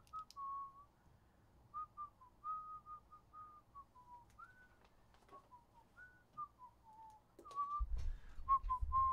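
A person whistling a tune: a run of short, gliding notes, with a few clicks and a low rumble of handling noise about eight seconds in.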